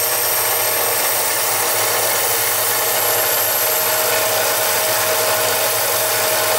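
Mini lathe running steadily as it turns a brass rod: an even motor-and-gear hum with a steady whine over a rushing noise.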